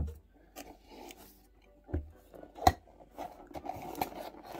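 Cardboard toy box being handled and opened by hand: a dull knock at the start and another about two seconds in, a sharp click a little later, then scraping and rustling as the end flap is pried open.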